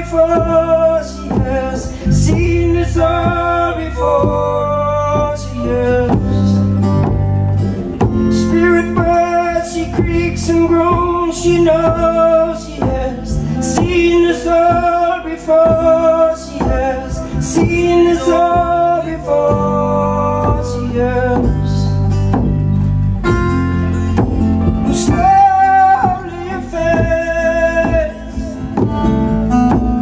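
Live acoustic band music: strummed acoustic guitar over a sustained low bass, with regular percussion hits and a stepping melody line of held notes.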